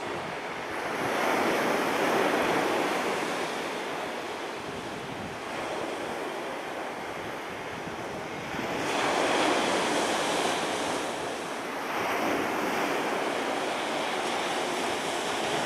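Black Sea surf breaking on the beach in a rough sea, the rush swelling about a second in, again around nine seconds in and around twelve seconds in, with some wind on the microphone.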